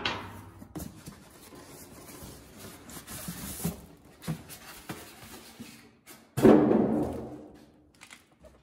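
A cardboard box and its styrofoam packing being handled, with light rustles and scrapes. About six and a half seconds in comes a single loud, hollow thump that dies away over about a second.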